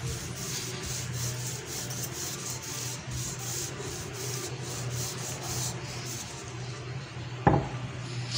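Rolling pin rolled back and forth over a layer of stuffing spread on dough, making a steady rubbing with quick repeated strokes. It stops about six seconds in, and a single knock follows near the end.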